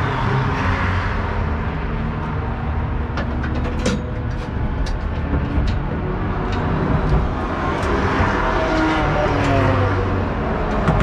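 Steady low drone of race car engines heard from inside a race car's cabin, with a quick run of sharp clicks and knocks around the middle.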